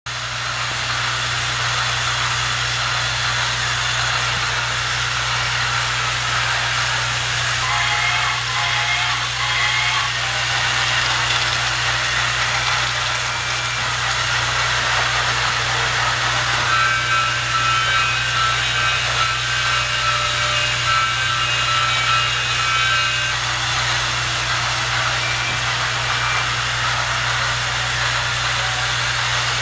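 Battery-powered Trackmaster toy trains running on plastic track, a steady whirring, buzzing motor noise. Twice a set of steady pitched tones sounds over it for a few seconds, about eight seconds in and again from about seventeen seconds in.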